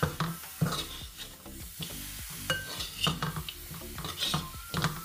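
A slotted metal spatula stirring and turning raw bone-in meat pieces through hot spice powders in a metal uruli, the meat sizzling under irregular scrapes and clinks of the spatula against the pot, sharpest about half a second in and again near the end.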